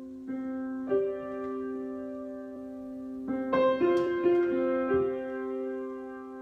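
Solo piano improvisation: slow, long-held chords, with new notes struck about a second in and a quicker cluster of notes around the middle.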